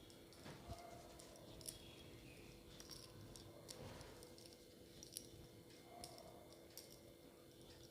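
Near silence: room tone with a faint steady hum and a few faint scattered clicks.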